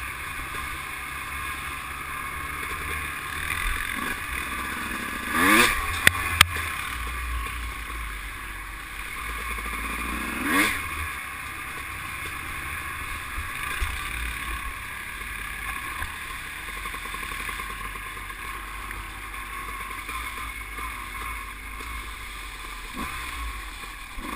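ATV engine running steadily while riding a bumpy dirt trail. The engine swells briefly about five seconds in and again about ten seconds in, and there are two sharp knocks about six seconds in.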